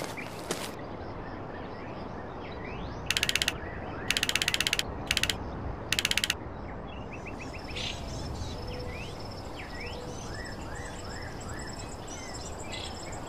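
Four short bursts of rapid, evenly spaced clicking, a text-blip sound effect for dialogue shown in speech bubbles, about three to six seconds in. Behind it runs a steady outdoor ambience track with birds chirping.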